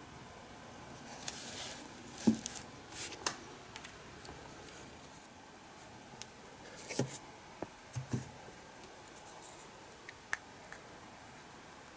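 Small handling sounds at a workbench: a scattering of light knocks and clicks, with the strongest knocks about two seconds in and again about seven to eight seconds in, and brief soft rustles between them.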